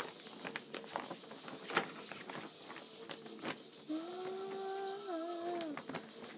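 Large glossy paper poster crackling and rustling as it is handled and folded. About four seconds in, a person hums one held note that dips in pitch just before it stops.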